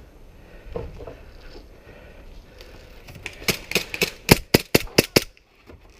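Airsoft pistol firing a rapid string of about ten sharp shots over two seconds, loudest in the second half.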